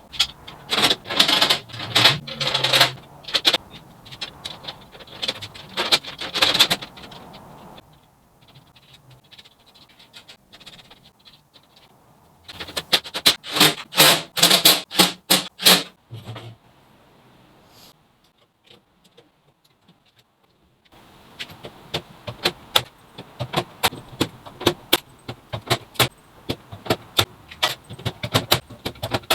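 Metalwork on an aluminium tub: runs of sharp hammer-like strikes, a stretch of near silence about two-thirds of the way in, then a long run of quick, lighter metallic taps and clicks.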